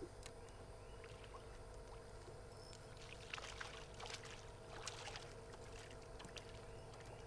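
A hooked fish splashing at the water's surface beside a canoe as it is reeled in. The splashes come in a cluster from about three to five and a half seconds in, over a faint steady hum.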